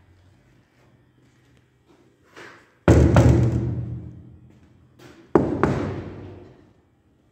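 Sheet-steel gate panel being banged twice, about two and a half seconds apart, each bang ringing on and fading over a second or more, with a softer knock just before each.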